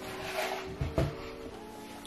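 Soft background music of held chords, changing chord about three-quarters of the way through, with a couple of dull thumps about a second in.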